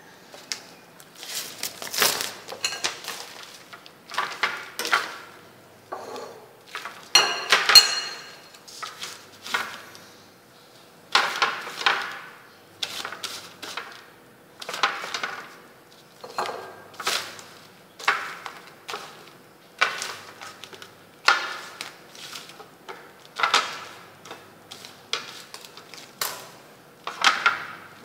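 Thin clear plastic sheet crinkling and rustling as hands spread and smooth it over a plastic tray, in short irregular bursts every second or two.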